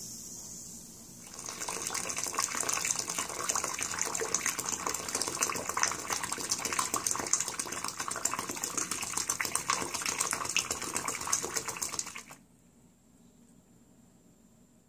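Boiling water poured from a kettle into a sink drain, splashing steadily for about eleven seconds and then cutting off suddenly. This is the boiling-water flush of a baking soda and vinegar drain treatment.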